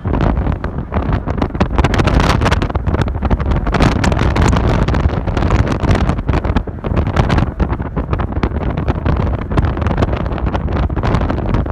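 Heavy wind buffeting the microphone from a moving vehicle, gusting unevenly over the vehicle's low road and engine rumble.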